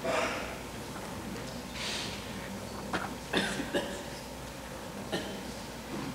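Quiet hush in a school auditorium between pieces: a cough right at the start and another about two seconds in, then a few sharp clicks and knocks a second or so later and one more near the end.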